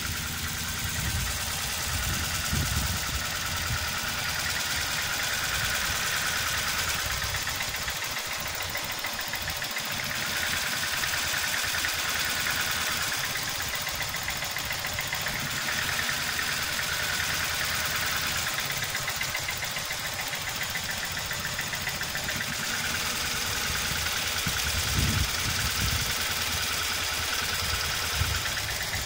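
Toyota 4A-GE 1.6-litre twin-cam 16-valve four-cylinder engine idling steadily, with a fast, even ticking over the low running note.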